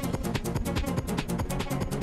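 Electronic dance music with a fast, steady beat and heavy bass.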